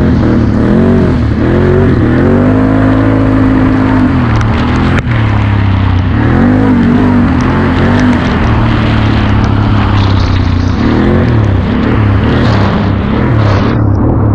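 Can-Am Outlander XT-P ATV's Rotax V-twin engine under way at speed, its pitch rising and falling again and again as the throttle is worked, with a momentary drop about five seconds in.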